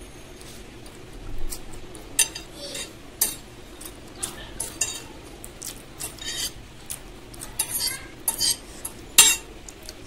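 A metal fork clinking and scraping against a plate as noodles are picked up, in irregular sharp clicks, the loudest near the end, with close-miked chewing between them.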